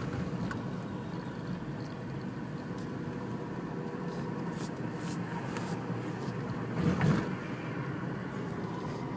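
Steady engine and road noise of a car driving on a city street, with a brief louder thud about seven seconds in.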